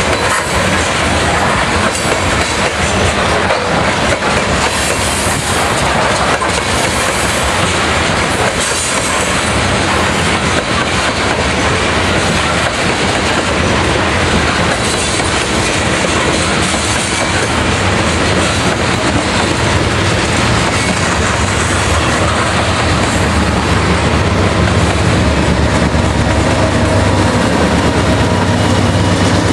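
Loaded coal train's hopper cars rolling past, the wheels clattering over the rails in a steady din. In the last several seconds a low, steady engine hum builds as the train's rear diesel locomotive draws near.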